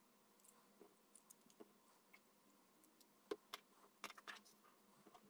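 Faint clicks and light taps of 3D-printed plastic parts being handled and set down on a cutting mat, with a sharper click about three seconds in and a few more just after, over a faint steady hum.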